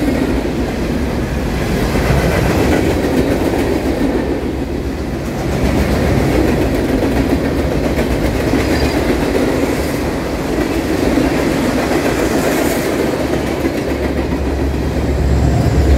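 Freight cars rolling past on steel rails, with steady wheel noise and clickety-clack over the rail joints. Near the end the diesel engine of the train's rear distributed-power locomotive grows louder as it approaches.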